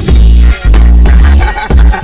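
Bass-boosted G-funk hip-hop beat with loud, deep bass notes that drop out briefly twice, no vocal over it.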